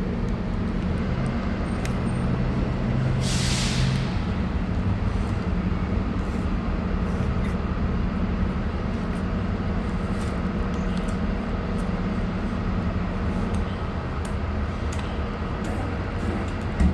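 Steady low hum of an idling engine, with a short burst of hiss about three seconds in.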